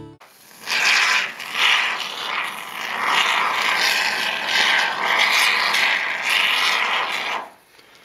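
Aerosol can of triple-expanding spray foam insulation dispensing through its straw applicator: a rough, uneven hiss and sputter that starts about half a second in and stops shortly before the end.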